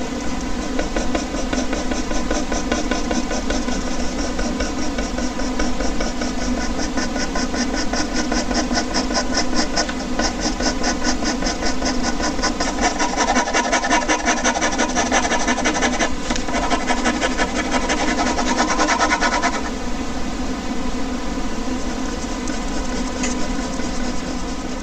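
Air conditioner running with a steady hum and whir. Over it, a ballpoint pen scratches across paper in quick, even hatching strokes, several a second, which stop about twenty seconds in.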